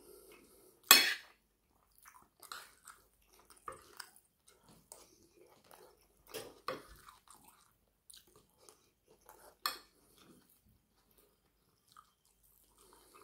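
Close-up eating sounds: chewing and mouth noises on curry and rice, with a metal fork clinking and scraping on a plate. The sharpest clink comes about a second in, another near ten seconds.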